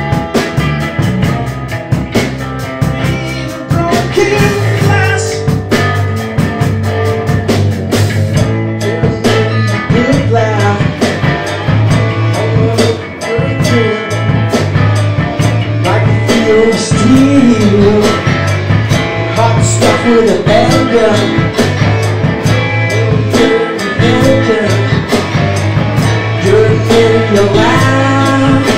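A rock band playing live together in a blues-rock style, with electric bass, electric guitars and keyboards over a steady beat. A bending melodic line sits on top.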